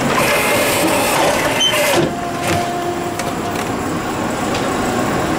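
Tomra Uno reverse vending machine running as it takes in and handles a plastic bottle, a steady mechanical whir that drops a little about two seconds in.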